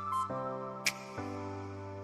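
Background music: soft held chords that change twice, with a light tick just under a second in.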